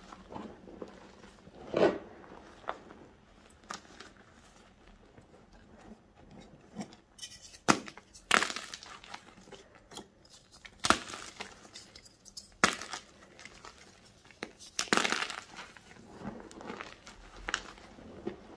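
Blocks of gym chalk crushed and broken apart by bare hands: soft, powdery crunching and crumbling, with a run of louder, sharper snaps through the middle as pieces break.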